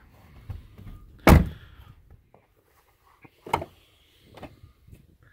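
A 2011 Jeep Compass car door shutting with one loud thunk about a second in, followed by two lighter knocks a couple of seconds later.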